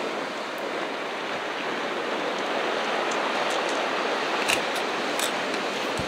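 Ocean surf washing steadily on the shore as an even rushing hiss, with no single breaking wave standing out. A couple of brief sharp ticks come about four and a half and five seconds in.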